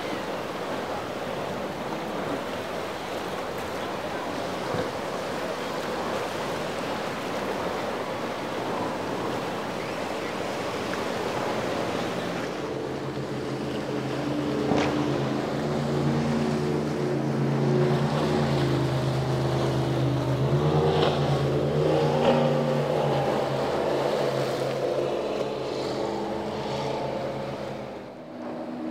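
Waves and wind rushing over the water, then about twelve seconds in a Baja performance boat's engines come in as a steady low drone of several tones, growing louder through the middle and easing off near the end.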